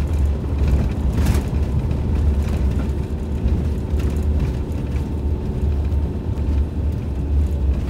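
Campervan driving along a gravel track, heard from inside the cab: a steady low engine and tyre rumble, with a few light knocks.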